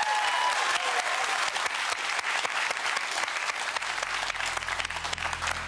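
Studio audience and box holders clapping, the applause dense at first and thinning toward the end.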